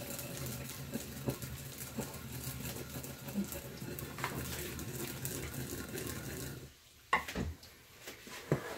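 Sesame seeds being ground in a ridged suribachi mortar with a wooden pestle: a steady rasp with scattered clicks. The grinding stops about two-thirds of the way through, followed by a few sharp knocks.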